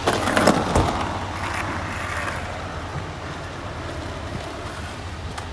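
Skateboard wheels rolling on asphalt: a steady rumble after a few knocks in the first second as the rider steps on and pushes off.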